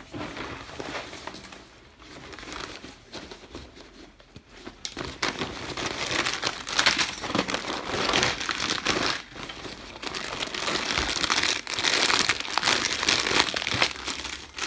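Plastic food packaging crinkling and a fabric backpack rustling as groceries, a packet of rice crackers and a bag of grapes, are handled and unpacked. The crinkling grows louder about five seconds in and is fullest in the second half.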